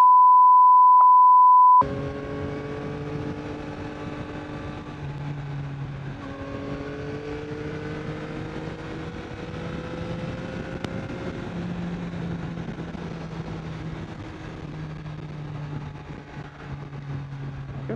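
A loud, steady censor beep for the first two seconds, after which the Yamaha MT-09's three-cylinder engine is heard cruising. The engine pitch dips about six seconds in, then climbs slowly.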